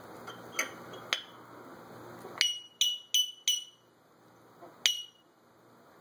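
African grey parrot making sharp, ringing pings like a glass being tapped: a couple of soft ones, then four loud ones in quick succession about three a second, and a last one a second or so later.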